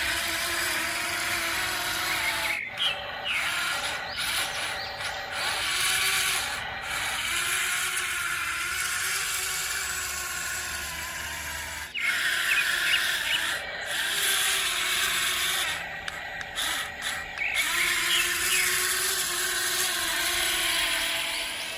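Small electric motors and gear drives of radio-controlled construction models whining as they work, the pitch rising and falling in short runs as the machines speed up, slow down and stop, with a few clicks between runs.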